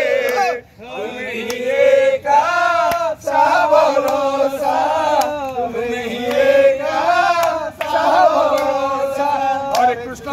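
A group of men chanting and singing together in unison, long held notes rising and falling in pitch, with a few sharp hand claps.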